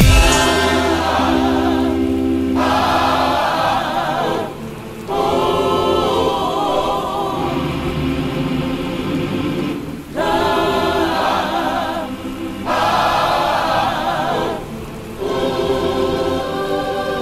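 Choral music: a choir singing long held phrases with vibrato, with brief breaks between phrases.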